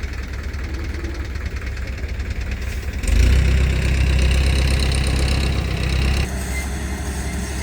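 An engine running steadily with an even pulsing, growing louder about three seconds in and dropping back about three seconds later.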